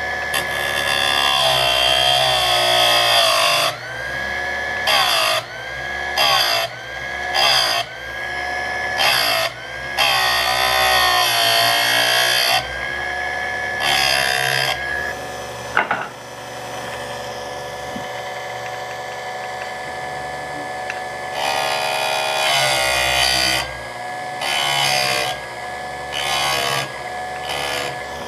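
Buffalo Corp. ECSS electric chainsaw sharpener: its motor whines steadily while the grinding wheel is lowered onto the chain's cutters again and again. Each pass brings a harsh grinding noise and a dip in the motor's pitch, which recovers as the wheel lifts, with a stretch of free-running whine in the middle. The grinding is heavier than a normal touch-up because extra metal is being taken off each cutter to refurbish a badly damaged chain.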